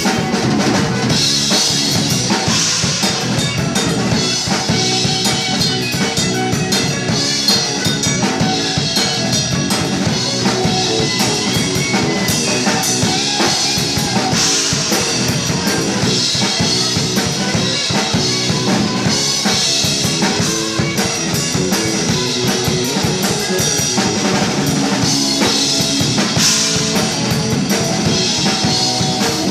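Live rock band playing: drum kit with bass drum, snare and cymbals, electric bass and electric guitar, loud and continuous.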